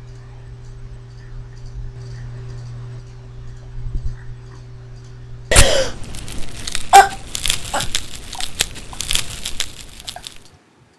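A low steady hum, then about five and a half seconds in a sudden loud knock followed by several seconds of irregular bumping, rubbing and rustling as the camera is handled and pushed against bedding, dying away near the end.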